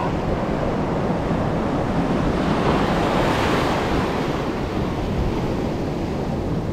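Sea surf washing over rocks and around the angler's legs, swelling as a wave breaks about three seconds in, with wind rumbling on the microphone.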